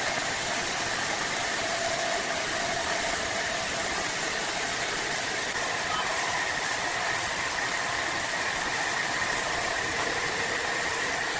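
Large horizontal bandsaw cutting through dense hardwood: a steady, unbroken hiss of saw and machine noise with a faint high whine held throughout.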